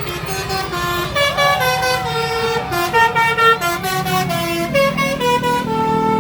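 Basuri 'telolet' multi-tone air horn playing a quick stepping melody of short and held notes, with a vehicle engine running underneath that grows louder near the end.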